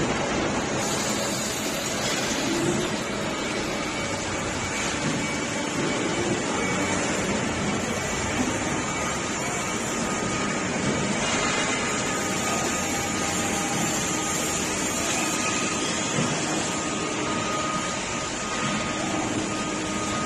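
Steady whirring machine noise of CNC panel benders working sheet steel, a hiss with a few thin steady tones through it and no distinct clanks.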